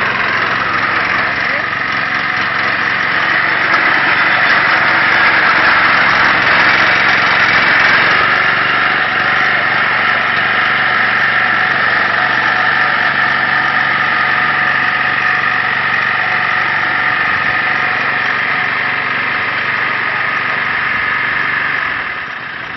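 Small engine of a scratch-built 1:5 scale Fiat 70C crawler tractor model running steadily, dropping quieter near the end.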